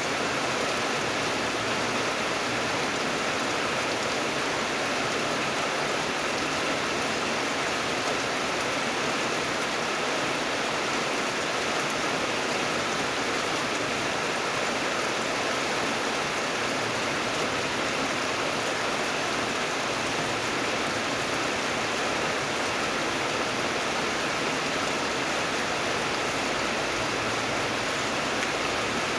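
Rain falling steadily: an even hiss with no single drops standing out and no change in strength.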